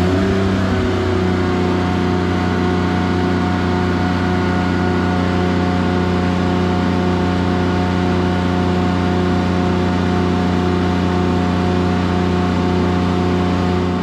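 Kubota GL14000 diesel generator's engine running at a steady speed just after starting, warming up with no load on it yet. The pitch rises and settles within the first second, then holds even.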